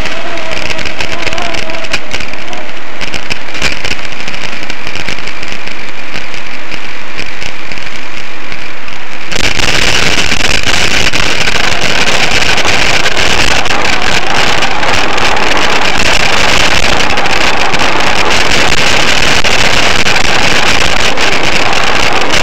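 Loud, steady rushing noise of wind and rolling on the microphone of a camera riding on a moving bicycle. About nine seconds in it jumps abruptly louder and fuller.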